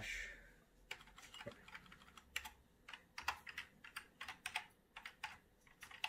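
Computer keyboard keys being typed in irregular, faint keystrokes while a drive name is entered.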